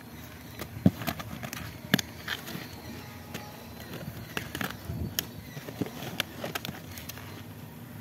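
A cardboard box being handled and unpacked: a plastic packing strap is pulled off, with scattered scrapes, crackles and knocks of hands on the cardboard. The two loudest knocks come about one and two seconds in.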